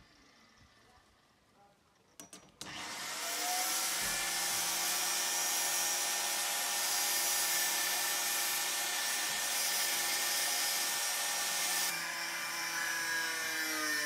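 A power tool motor starts a few seconds in, rising in pitch, and runs steadily through material with a loud hiss for about nine seconds, then changes pitch and slows near the end. A few clicks come just before it starts.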